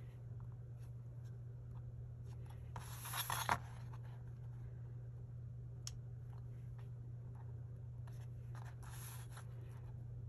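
Pen scratching along a stainless steel ruler on a sheet: two scratchy strokes a few seconds apart, the first the louder, with small taps and a sharp click from the ruler and sheet being handled.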